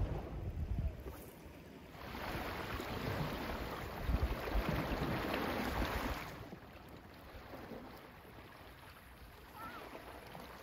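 Wind buffeting the microphone and seawater washing against shore rocks, with a louder rush of surf from about two to six seconds in.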